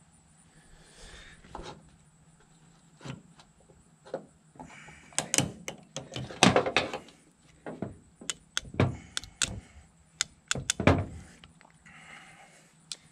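Metal driveshaft parts and tools being handled: irregular clinks and clicks, with a few heavier clanks, the loudest near the middle.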